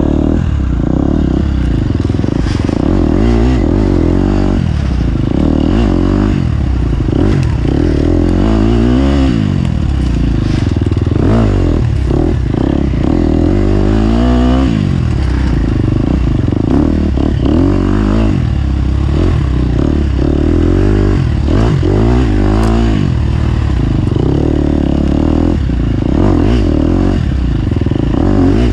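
Off-road racing engine under hard use, its revs repeatedly climbing and dropping as the throttle is worked, with short knocks and rattles throughout.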